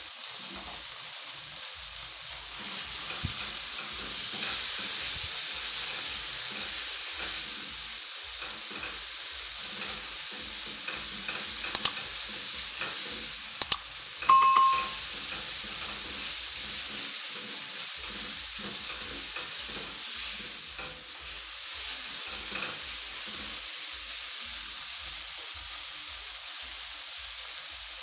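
Omena (small dried fish) cooking with tomatoes in a pan, with a steady sizzle and a spoon clicking and scraping against the pan as it is stirred. About halfway through comes a brief ringing ding, the loudest sound.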